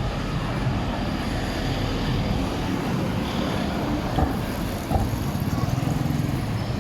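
Street ambience dominated by the steady rumble of motor traffic, with a couple of brief knocks about four to five seconds in.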